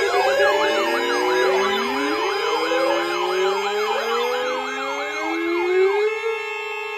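Several NOAA weather radios sounding their alert alarms together for an incoming severe thunderstorm warning. A fast warbling siren sweep repeats about twice a second over slower rising glides and steady tones. The warbling stops about six seconds in, leaving only the steady tones.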